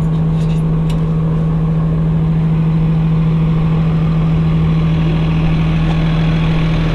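Shuttle bus engine idling: a loud, steady low hum that holds an even pitch.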